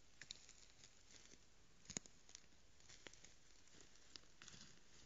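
Near silence with steady hiss, broken by scattered faint clicks and ticks and one sharper click about two seconds in, as a young red deer stag moves right beside the trail camera.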